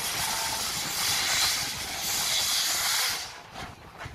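Streamlined steam locomotive, NSW 3801, hissing loudly with escaping steam as it moves along; the hiss cuts off suddenly about three seconds in, leaving a few fainter puffs.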